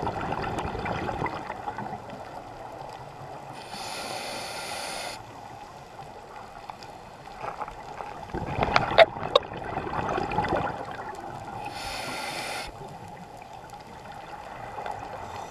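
Scuba regulator breathing heard underwater over a steady wash of water. There are two short hisses, about four seconds in and again near twelve seconds, and between them a louder burst of bubbling with a few sharp clicks.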